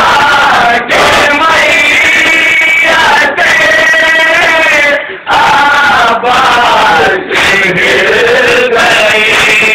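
Men loudly chanting a nauha, an Urdu Shia mourning elegy, in a lead-and-group style. The phrases break briefly about every one to two seconds.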